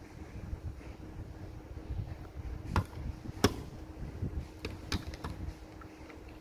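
Plastic Lego bricks clicking and knocking as a hand-built Lego model is handled and turned over: a few sharp clicks, the loudest about three and a half seconds in, over a low rumble of handling and a steady low hum.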